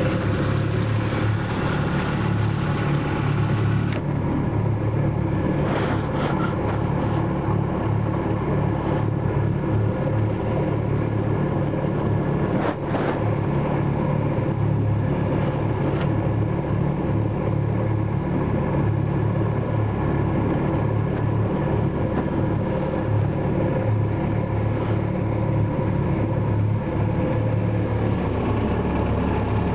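Johnson outboard motor running steadily, pushing a small aluminum boat along at low speed.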